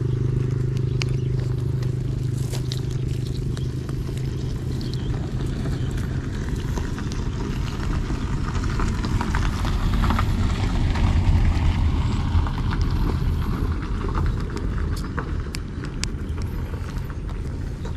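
An engine running with a steady low hum that turns rougher and louder around the middle, with scattered light scrapes and clicks over it.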